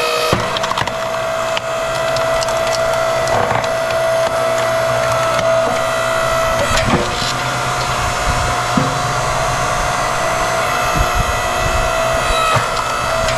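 Tiya 8-ton electric hydraulic log splitter running with a steady motor whine, while logs crack and splinter several times as the ram splits them.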